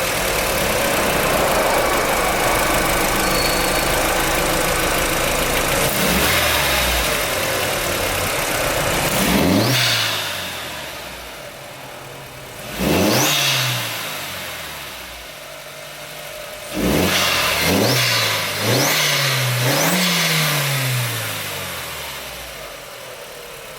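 Volkswagen 1.8-litre turbocharged four-cylinder engine breathing through a freshly fitted open ram-air filter, running at a steady, fairly loud idle and then revved in several short blips, each rising in pitch and falling back to idle, the last few close together.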